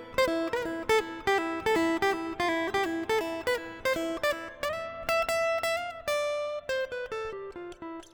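Takamine P3NC acoustic guitar played solo: a steady run of single picked notes that slows, a held chord about halfway, then a few last notes, the final one left ringing as the piece closes.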